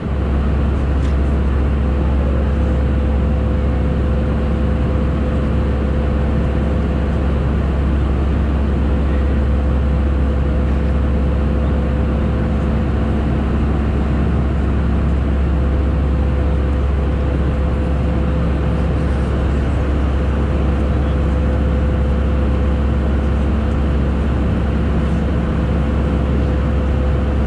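Airbus A320-214 cabin noise in cruise: an unchanging low drone of airflow and CFM56 engines, with a faint steady hum above it.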